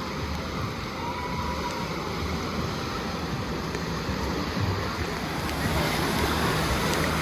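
Water-park wave pool running continuous waves: a steady wash of surf and splashing water that grows a little louder near the end.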